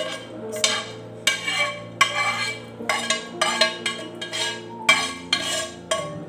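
A utensil scraping and clinking against a cooking pan, about ten quick, irregular strokes, as sauced chicken pieces are scooped out. Soft background music plays underneath.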